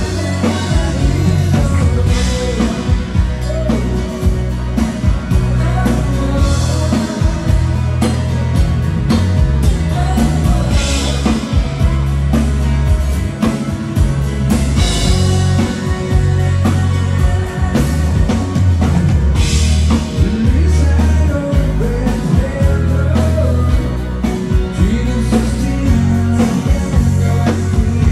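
A dansband playing a ballad live: a singer over electric guitar, bass and drum kit with a steady dance beat.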